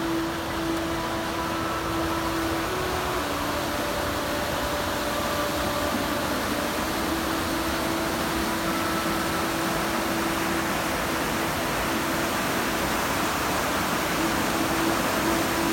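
Steady rush of a mountain river running white over boulders in a narrow gorge. A few faint held tones sit over the noise.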